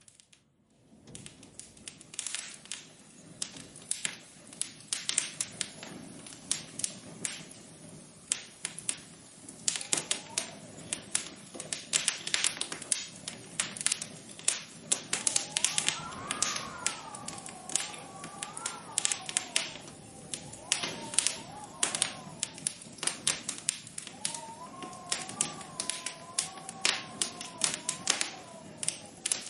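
Rapid, irregular tapping and clicking that starts about a second in and gets louder about ten seconds in. A faint, slowly wavering tone drifts in and out beneath it.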